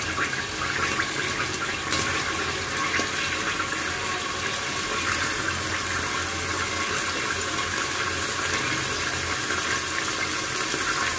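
Chopped onions frying in hot oil in a pressure cooker, a steady sizzle as they start to brown.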